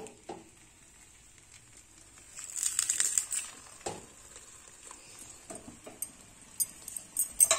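Rolled flour dough for a paratha laid into a hot, lightly oiled iron pan and smoothed flat by hand, with a short spell of crackling about two and a half seconds in and a run of light clicks and taps near the end.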